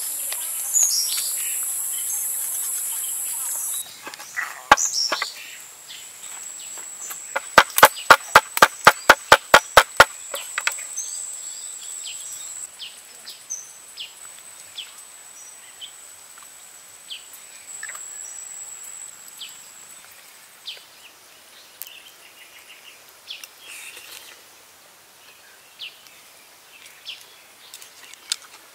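Outdoor ambience with birds chirping and a high steady buzz that stops about four seconds in. A quick run of about ten cleaver chops, roughly four a second, comes a few seconds later.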